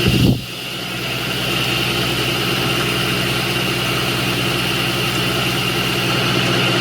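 Milling machine running steadily with a hum and a high whine, its end mill cutting a slot in a 7075 aluminium block. The level dips briefly about half a second in.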